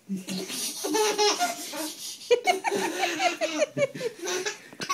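A baby laughing in repeated bursts of giggles, set off by a cat licking its toes.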